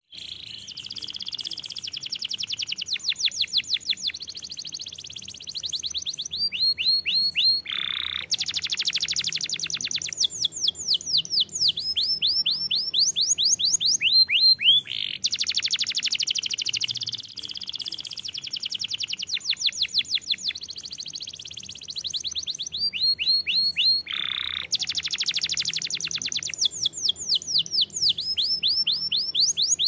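Domestic canary singing a long, continuous song of fast trills and rapid runs of repeated rising notes, with only brief pauses between phrases. The same stretch of song repeats about halfway through.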